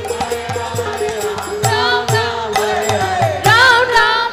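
Kirtan music: a harmonium holding a steady note under a regular hand-drum beat, with voices singing a devotional chant that comes in about a second and a half in and rises again near the end. Hand-clapping from the audience keeps time.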